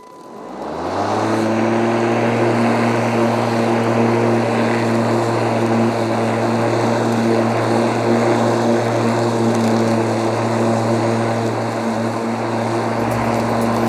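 Greenworks G40LM41K2X 40V cordless lawn mower: its electric motor and blade spin up about a second in, then run at a steady hum as it cuts grass with the collection bag off, in rear-discharge mode.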